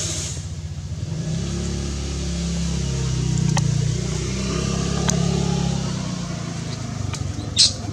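A motor vehicle's engine passing by, swelling about a second in, rising and falling, then fading. A few faint clicks and a short sharp hiss come near the end.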